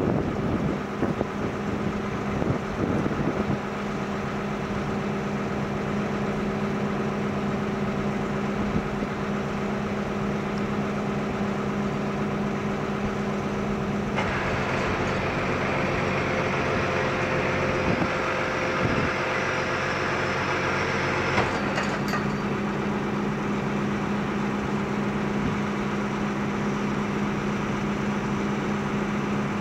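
New Holland 8870 tractor's diesel engine idling steadily. From about 14 to 21 seconds a loud hiss and a higher steady tone join it, then stop abruptly and the plain idle returns.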